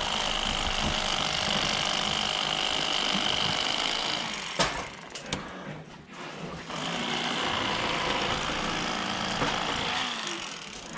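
Cordless electric fillet knife buzzing steadily as its reciprocating blades cut through a largemouth bass. It stops with a click about four and a half seconds in, starts again about two seconds later and runs until about a second before the end.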